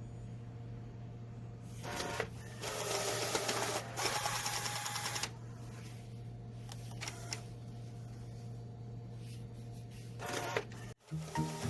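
HP PageWide inkjet printer running over a steady low hum, with louder stretches of mechanical whirring and rattling about two to five seconds in, then scattered clicks. The printer makes this noise while printing.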